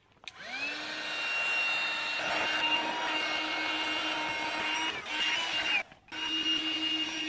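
Small handheld electric air pump inflating an air mattress: its motor spins up with a rising whine just after the start, then runs steadily. It cuts out for a moment about six seconds in and starts again.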